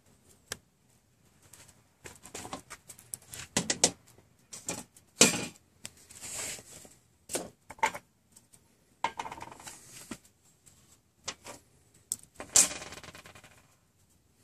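Small metal char tins being handled on a table: scattered clinks and knocks with short bouts of scraping and rustling. The loudest knock comes about five seconds in, and a longer scrape near the end.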